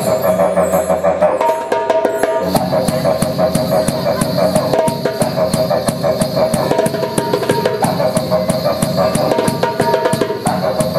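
Didgeridoo droning steadily while the same player keeps a quick, even beat with his hands on a darbuka goblet drum and cajon; the drum strokes come in about two and a half seconds in.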